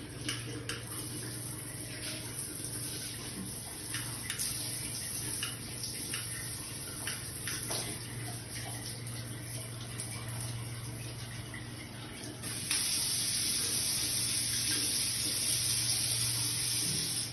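Water running from a tap or pipe, with scattered knocks and clicks. About thirteen seconds in, a much louder hissing rush of water starts.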